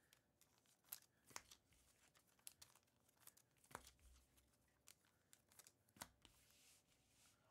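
Faint handling of baseball trading cards and pack wrappers: scattered light clicks and crinkles at an uneven pace, with a brief soft rustle near the end.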